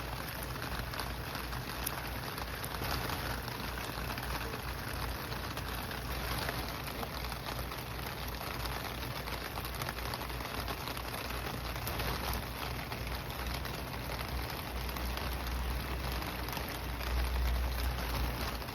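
Steady rain falling on wet ground and leaves, many separate drops ticking against a constant hiss. A low rumble sits underneath, stronger near the end.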